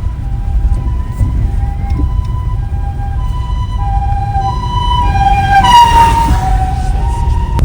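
Japanese ambulance siren sounding its two-tone hi-lo "pii-poo", the high and low notes alternating about every half second. It grows louder as the vehicle approaches, and the pitch dips briefly as it passes about six seconds in, over a steady low rumble of road traffic.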